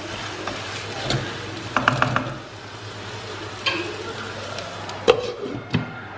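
Wooden spatula stirring and scraping chopped onions and tomatoes around a stainless steel kadai in irregular rasping strokes. About five seconds in come two sharp clinks as a glass lid is set on the pan.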